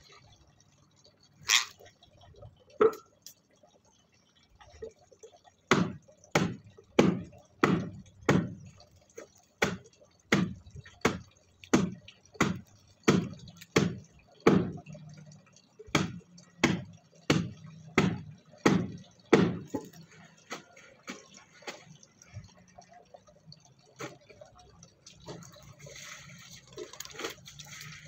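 Rose-ringed parakeets bathing in a shallow steel basin of water, splashing in a long run of sharp splashes about one and a half a second, with a couple of short pauses. Near the end the splashes give way to a softer, steady rustle of water.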